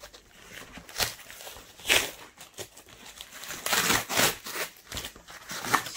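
Packing tape on a cardboard parcel being slit with a small knife and the flap torn open: short scratchy ripping sounds, with a longer stretch of tearing about two thirds of the way through.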